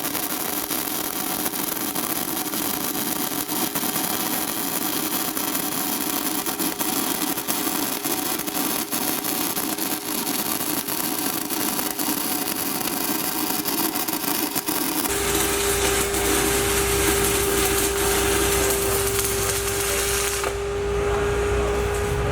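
E6010 stick electrode arc crackling steadily while running the root bead on steel pipe. About two-thirds of the way through, a steady low hum and a held tone join the crackle.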